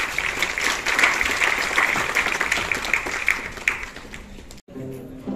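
Audience applauding, a dense patter of many hands clapping that fades out after about four seconds.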